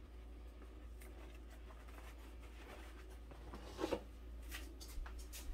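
Faint steady room hum. A short scrape and light clink just before four seconds in as a metal skillet is lifted off the countertop, followed by a few soft knocks.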